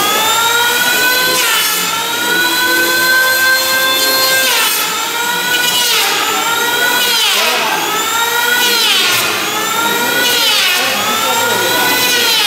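An electric power tool's motor whining at a high pitch. It spins up at the start and holds steady, then from about halfway its pitch dips and recovers about every second and a half, the way a tool sags each time it is put to work.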